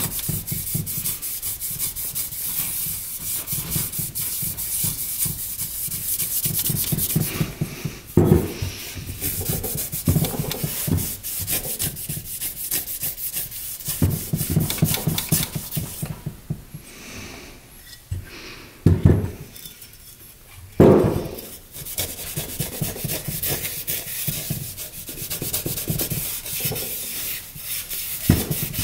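Rapid back-and-forth hand scuffing with an abrasive on the ATV engine's metal base-gasket surface, wet with WD-40: roughing up the mating surface so the gasket seals. The rubbing eases off for a few seconds past the middle, and a few louder knocks come about 8, 19 and 21 seconds in.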